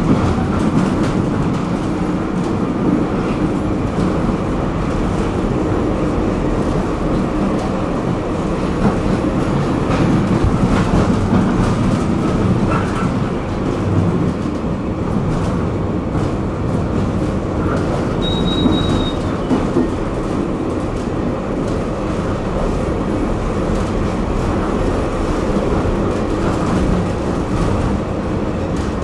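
A tram running along its tracks: a steady rumble of wheels on rail with occasional light knocks, and a short high-pitched tone a little over halfway through.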